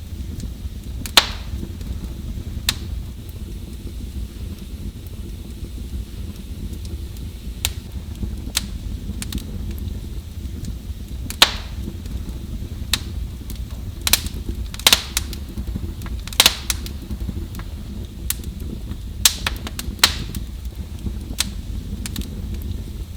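Wood fire burning in a fireplace: a steady low rumble of the flames with sharp, irregular crackles and pops, several of them louder in a cluster around the middle.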